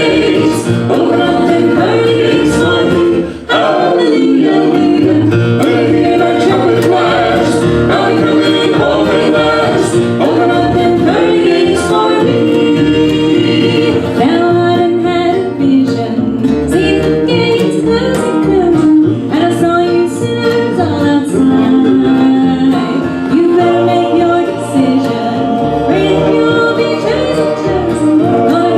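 Country gospel vocal group singing in harmony with acoustic guitar accompaniment.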